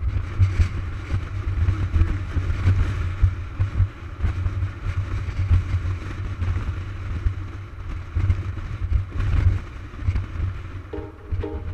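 Wind buffeting the microphone of a camera on a moving motorcycle, with road noise under it. Music starts near the end.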